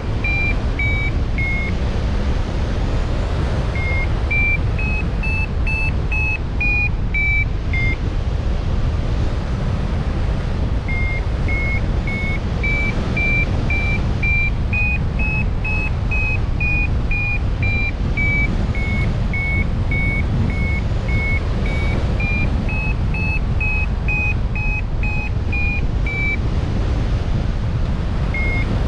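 A continuous run of short electronic beeps, about four a second, stepping up and down in pitch like a simple repeating tune, over a steady low rumble.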